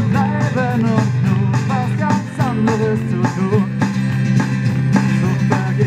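Live band music with acoustic guitar, drums and keyboards over a steady drum beat. A wavering lead melody runs over the first half.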